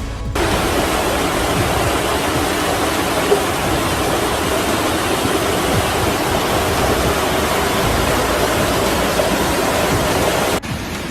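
Rushing floodwater: a loud, steady roar of fast-flowing water that starts suddenly just after the beginning and cuts off abruptly near the end.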